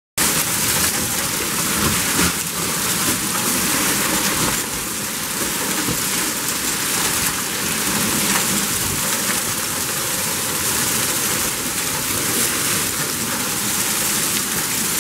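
Hailstorm: hail and rain falling steadily, a dense, even hiss of pelting.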